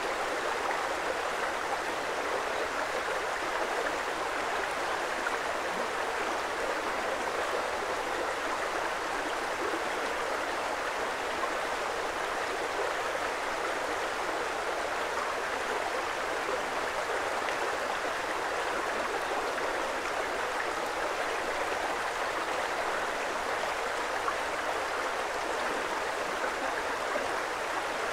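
Creek water flowing in a steady, even rush.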